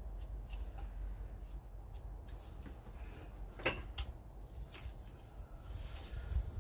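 Handling noise: a few light knocks and clicks as a plastic brake fluid reservoir is moved about and the area around it wiped with a rag. The sharpest knocks come a little under four seconds in, over a low rumble.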